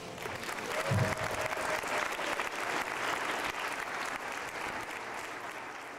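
Audience clapping after a children's choir song, with a short low thump about a second in. The clapping tapers off near the end.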